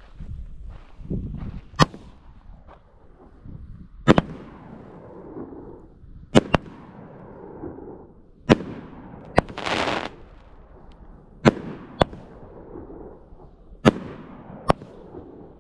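Fireworks going off: about ten sharp bangs at irregular intervals, each trailing off in an echoing rumble, with a brief hiss about two-thirds of the way through.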